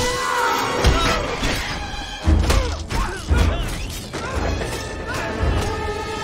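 Dramatic orchestral film score, with loud crashing impacts and thuds cut into it: three heavy hits in the first few seconds, then the music carries on under smaller knocks.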